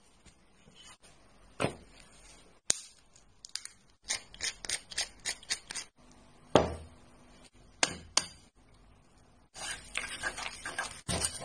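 Kitchen handling sounds: scattered light clicks and taps, and a solid thump about six and a half seconds in as a bowl is set down on the cutting board. From about nine and a half seconds in, chopsticks stir a thick white batter in the bowl, making quick continuous scraping.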